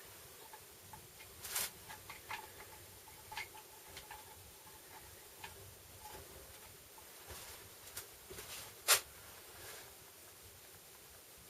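Scattered light clicks and taps of tools and metal parts being handled, a few with a brief faint ring. The sharpest click comes about nine seconds in.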